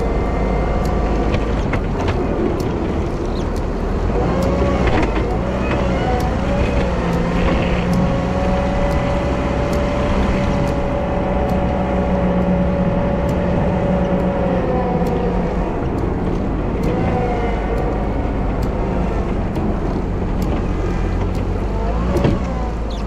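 Wheel loader's diesel engine running under work while snow plowing, its note rising and falling, holding steady for several seconds in the middle of the stretch, then dropping back. Faint regular ticks sound throughout.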